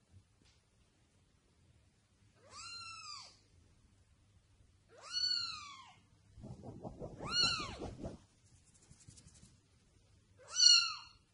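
A young kitten meowing four times: thin, high mews that rise and then fall in pitch, each under a second, spaced a couple of seconds apart, the last one the loudest. A low rustling noise runs under the third mew.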